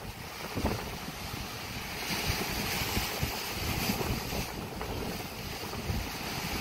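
Wind buffeting the microphone in uneven gusts, over the hiss of sea surf washing against the rocks, the surf swelling for a couple of seconds midway.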